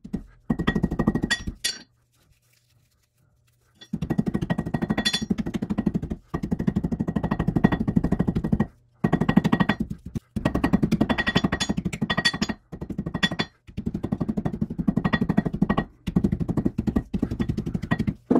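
Ball peen hammer rapidly striking a paintbrush's dried-paint-hardened bristles against a metal anvil, in runs of quick metallic blows with brief pauses and a longer pause about two seconds in. The pounding breaks up the dried paint to free the bristles.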